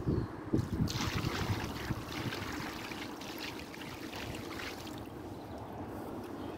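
Water poured from a bucket, splashing onto a bronze plaque and the surrounding concrete to rinse it off. The pouring starts about a second in and dies away after about five seconds.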